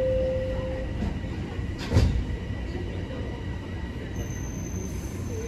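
Toronto Rocket subway car on TTC Line 1 pulling out of the station, heard from inside the car: a steady low rumble, with one sharp knock about two seconds in and a thin high whine that starts about four seconds in.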